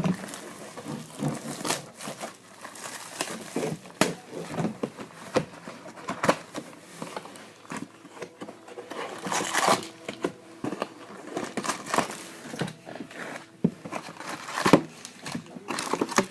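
Plastic wrap crinkling and tearing as a sealed trading-card box is opened, with scattered clicks and knocks of the box and packs being handled.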